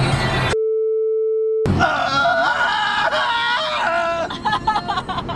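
A single steady electronic beep, about a second long, edited over the audio so that all other sound cuts out while it plays. Around it, people sing loudly along to music inside a moving car.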